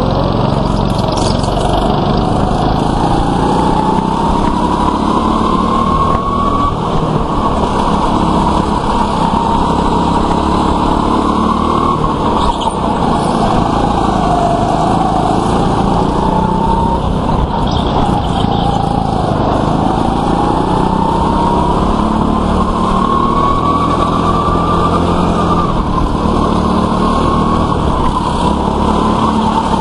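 Indoor go-kart running flat out, its motor whine climbing in pitch for several seconds down each straight and dropping back as it slows for corners, over and over, with a steady low rumble underneath.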